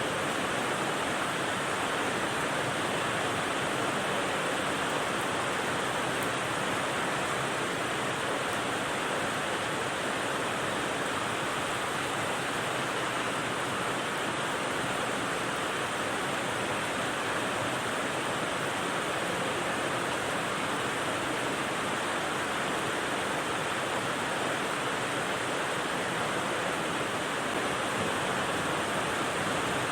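Rain white noise: a steady, even hiss that does not change, with no separate drops, gusts or thunder standing out.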